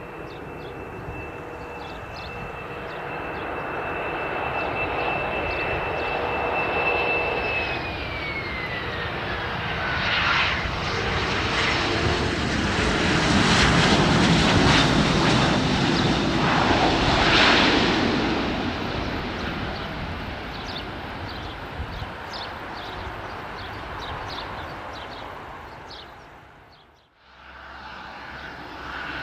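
Bombardier CRJ-1000 regional jet's twin GE CF34 turbofans on landing. A high fan whine drops in pitch as the jet passes. Then a loud rush of engine noise swells and fades as it rolls down the runway. The sound cuts off briefly near the end and returns quieter.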